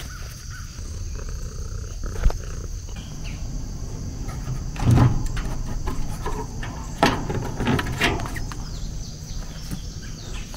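Steady high-pitched trilling of insects in the background, with several louder rustling, scraping handling noises about halfway through and again a couple of seconds later, as a wire is pulled along a wooden frame.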